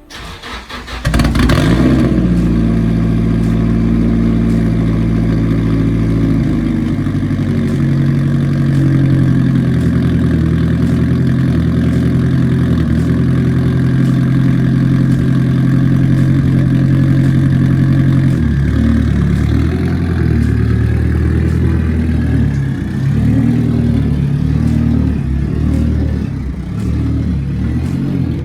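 Nissan Silvia S15's engine starting about a second in, then idling steadily. Its note drops and turns more uneven about two-thirds of the way through.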